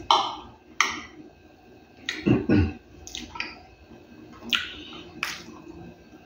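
Close-up eating sounds: wet lip smacks and chewing of a mouthful of food, a few sharp smacks spread through, with a louder, lower double sound a little over two seconds in.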